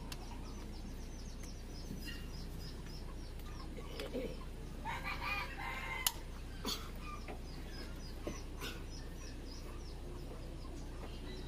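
A rooster calls once, about five seconds in, over rapid high chirping from a small bird. A few sharp metallic clicks come from a wrench working the engine's cylinder head bolts.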